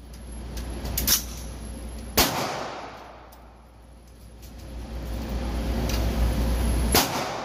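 Three pistol shots in an indoor shooting range: a lighter one about a second in, a loud one about two seconds in, and another loud one near the end, with a hiss between them.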